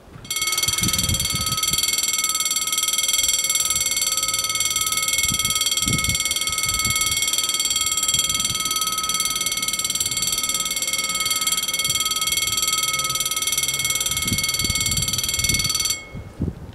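The level crossing's two warning bells ring continuously and loudly as the crossing closes for an approaching train. They start just after the beginning and cut off suddenly near the end, as the barriers reach the lowered position.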